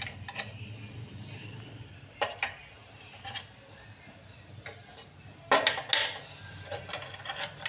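Metal spoons clinking and tapping against steel containers as spices are spooned into a steel box of chopped onion and herbs: scattered separate clinks, the loudest cluster of them about five and a half seconds in.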